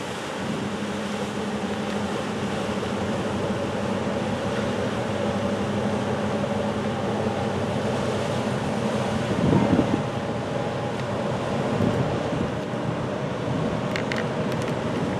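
Steady drone of a ship's engine mixed with wind and lapping water. Its lowest hum fades out about nine and a half seconds in, and a few faint ticks come near the end.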